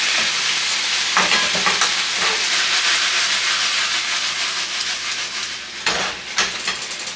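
Chicken and vegetable stir fry sizzling in a hot pan, with a utensil scraping and knocking against the pan as it is stirred. The sizzle eases a little near the end.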